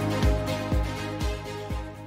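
Electronic background music with a steady kick-drum beat about twice a second, fading out.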